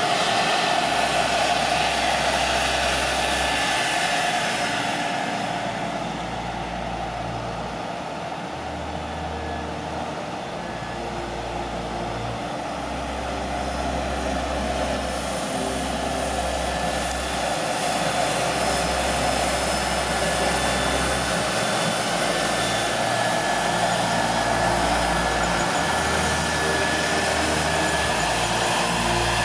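Fendt 818 Vario tractor's six-cylinder diesel running steadily under load while pulling a seed drill through the field, with a steady mechanical whine over it. The sound eases off somewhat in the first third, then grows louder again.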